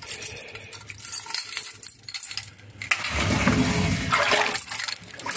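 Bunch of keys jangling and clicking against the lock of a sliding screen door, then, about three seconds in, a steadier and louder scraping, rushing noise.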